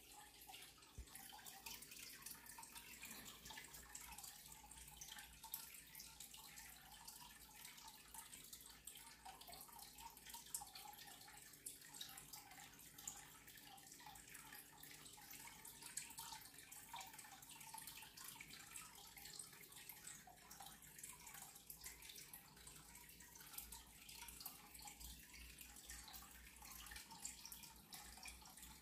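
Near silence: faint room tone with a light hiss and soft, irregular ticking.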